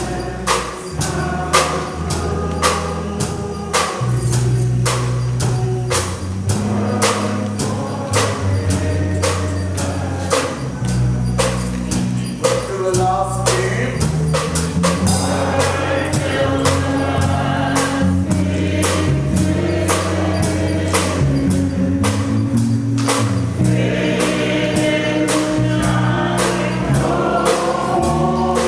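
Gospel music: a choir singing over a sustained bass line, with a steady percussion beat.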